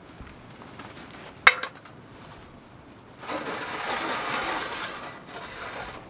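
Cookware and food being handled: one sharp clink about a second and a half in, then about two seconds of rustling, hissing noise as sliced pork belly goes into a stainless steel pan.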